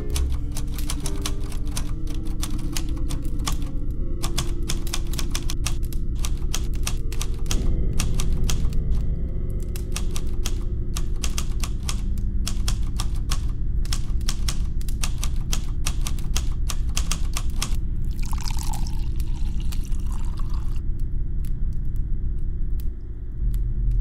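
Keys of a manual portable typewriter struck in quick, irregular runs, each stroke a sharp clack, over low sustained music. The typing stops about eighteen seconds in, and liquid is poured into a glass for a couple of seconds.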